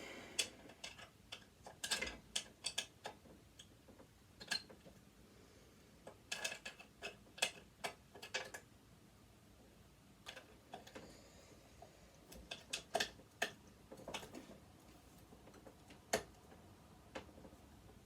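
Hand tools working on a sewing machine's screws: scattered light clicks and taps, coming in small irregular clusters with quiet gaps between.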